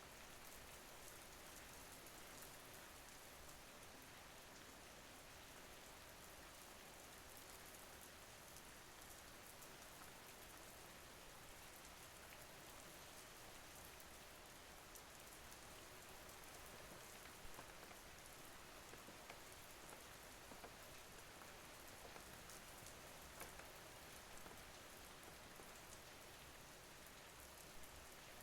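Faint, steady rain: an even hiss of rainfall with many small raindrop ticks, a few of them a little louder after the middle.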